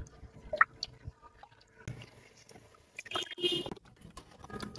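A silicone spatula stirring jelly liquid in a saucepan: faint soft sloshing and light taps, with a brief louder scrape a little past three seconds.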